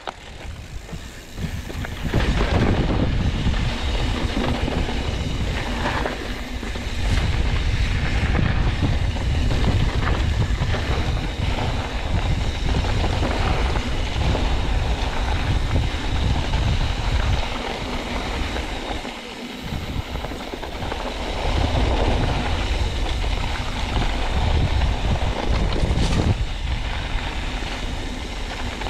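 YT Capra mountain bike rolling fast down a dirt singletrack: a steady rush of wind over the microphone and tyre rumble on the dirt, with sharp rattles and clicks from the bike as it hits bumps.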